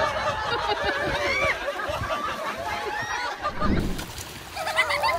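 Several people's voices overlapping at once, calling out and chattering in high-pitched voices, with a brief low thud about three and a half seconds in.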